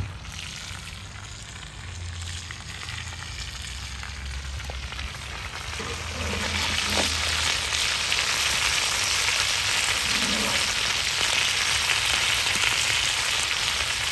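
Potatoes, onion and lard sizzling in a cast-iron cauldron, the frying hiss growing louder about six seconds in, while a metal slotted spatula stirs them.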